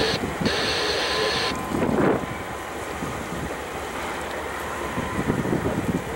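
Freight cars rolling across a steel truss bridge, a low uneven rumble mixed with wind buffeting the microphone. A steady hiss sits over it for the first second and a half, then stops.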